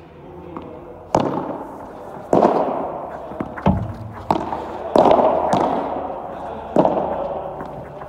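Padel rally: about eight sharp pops of the ball struck by padel rackets and bouncing off the court and walls, each hit ringing on in a long echo of the big covered hall.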